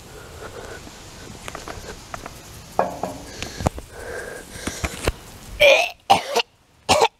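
A boy making fake retching and gagging noises, pretending to be sick: several short, loud heaves in the last second and a half. Before that there are only faint knocks and clicks.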